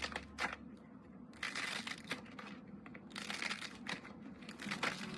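Hands squishing and kneading glittery slime mixed with foam balls, in irregular bursts of crackly clicks several times.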